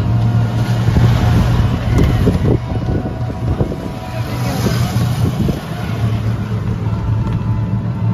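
Two-wheeler's engine running steadily at cruising speed, with wind rushing over the microphone while riding.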